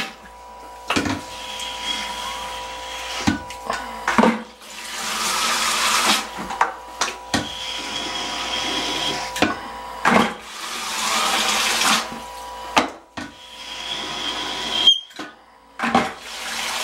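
Hand-held tube suction pump drawing the water out of a toilet bowl and emptying it into a bucket, stroke after stroke: a rush of water lasting a second or two every few seconds, with sharp knocks of the pump between strokes.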